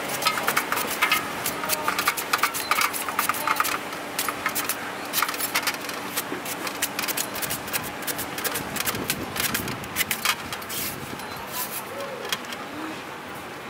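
A large kitchen knife slicing a peeled mango held in the hand, with quick irregular clicks and ticks as the blade cuts and the slices drop onto a stainless steel tray. The clicks come thickest in the first few seconds and again around ten seconds in.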